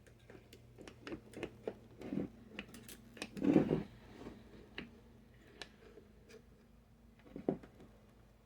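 Greasy gearbox parts being handled: a series of light clicks and knocks, with a louder, longer clatter about three and a half seconds in and another sharp knock near the end.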